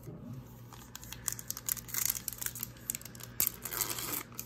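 Foil wrapper of a 2020 Panini Absolute football card pack crinkling in the hands as it is torn open: a run of quick crackles and rips over a few seconds.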